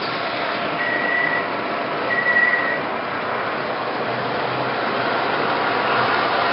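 O-gauge model subway train running on the layout's track, a steady rumble that grows louder as it comes past near the end. Two short high beeps sound, about a second in and again about two seconds in.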